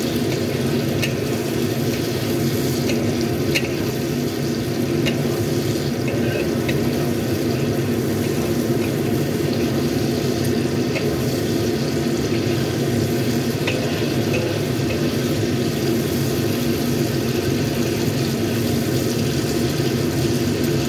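Shrimp sizzling in hot oil in a wok over a steady low rumble, with scattered sharp clicks of a metal wire strainer and spatula knocking against the wok as the shrimp are scooped out to drain.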